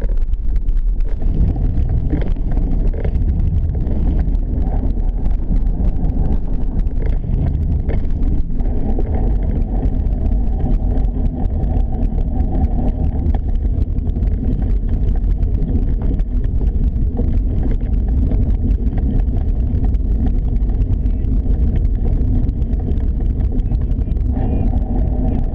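Steady low rumble of wind buffeting and movement noise on an action camera's microphone as it travels quickly along a gravel towpath.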